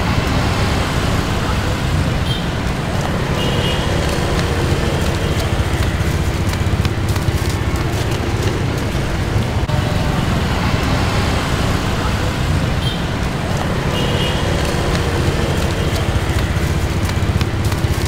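Steady road traffic noise with a heavy low rumble and no breaks.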